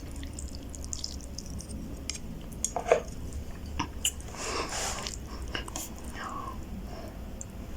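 A person chewing roast beef ramen noodles close to the microphone, with scattered wet clicks and smacks.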